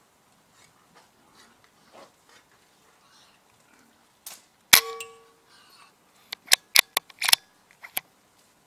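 A single sharp gunshot from a scoped rat-hunting rifle, with a short metallic ring after it, about halfway through. It is followed by a quick run of sharp clicks and knocks.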